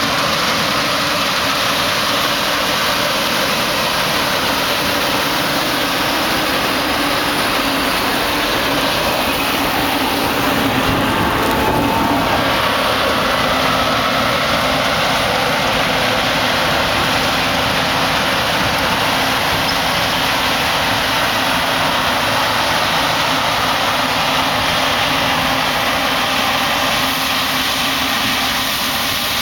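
Claas Lexion 540 combine harvester running under load while cutting and threshing oilseed rape: a steady, dense engine and machinery noise. It swells briefly as the machine passes closest, about a third of the way in.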